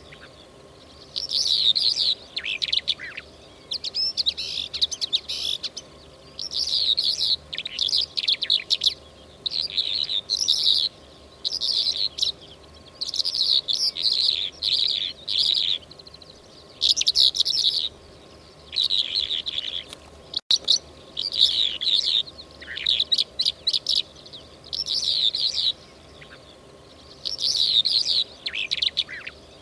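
Lark song played as a hunting lure call: repeated phrases of rapid, high twittering, each a second or two long with short pauses between.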